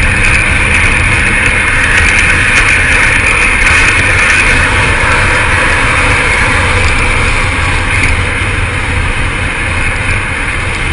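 Steady rush of wind and road noise from a car travelling at speed, heard from the car's roof.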